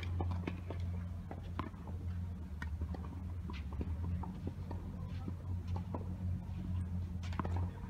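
Outdoor ambience at tennis courts: a steady low rumble with many scattered, irregular faint clicks and ticks.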